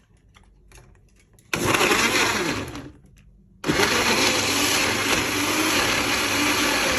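Electric blender running in two bursts: it starts suddenly about a second and a half in and winds down after about a second and a half, then starts again about two seconds later and keeps running. A few faint clicks come before the first burst.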